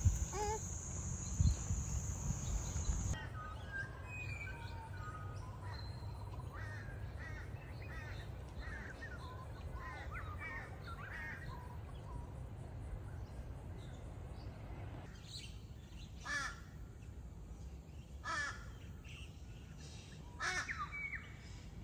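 Birds calling in the trees: a run of short chirps and warbles, then from about two-thirds in, a few louder calls repeated every couple of seconds. Over the first few seconds a steady high insect buzz and a low rumble run under them, and both cut off suddenly.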